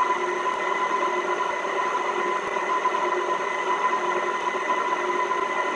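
Aucma 6.5-quart 660 W tilt-head stand mixer running at a steady speed above its slow setting, its motor giving a steady whine as it beats a thick batter.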